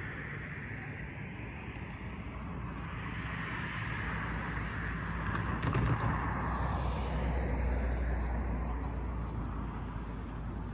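A road vehicle driving past, its sound swelling to a peak about seven seconds in and then fading, over a steady low hum.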